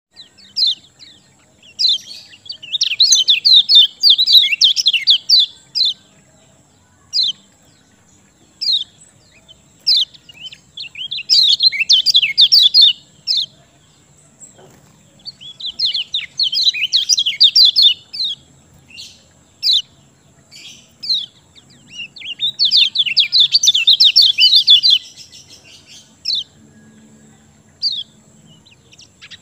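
Kecial kuning songbird singing in full song. Four bursts of rapid, high twittering, each a few seconds long, are separated by single short chirps.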